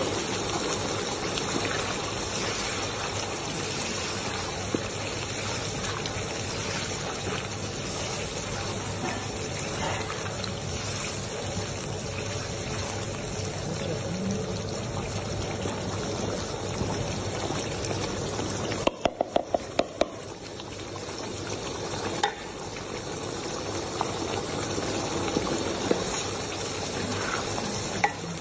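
Thick red sauce bubbling and sizzling in a wok, stirred now and then with a wooden spatula. About two-thirds of the way through there is a quick run of about six sharp clicks.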